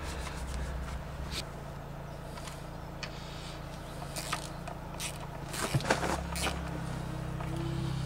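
Light clicks and scrapes of a hand tool and a rag worked around a motorcycle's front disc-brake caliper, the sharpest knocks just past halfway, over the steady low drone of an engine running.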